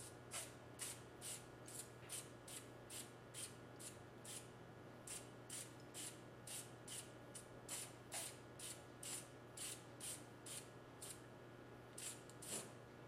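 Preval aerosol sprayer misting DuraCoat firearm finish in short hissing bursts, about two a second, with brief pauses. The bursts lay down a very light camo accent coat, just enough to hide the base colour.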